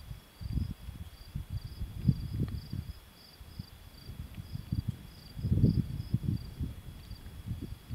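Crickets chirping in an even pulse, about two to three chirps a second, over irregular low gusts of wind buffeting the microphone, the strongest gusts about two seconds in and again around five to six seconds.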